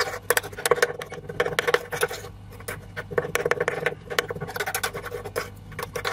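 Metal spoon stirring a thick, wet paste of grated ginger in a small metal bowl: quick, irregular scraping and clicking of the spoon against the bowl.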